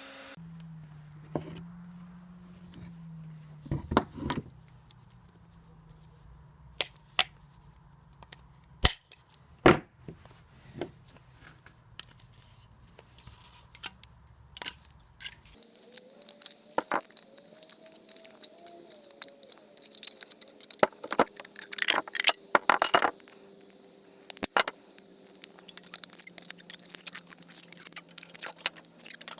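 Irregular clinks, taps and short scrapes of hard objects being handled, with a faint hum under them that stops abruptly about halfway through.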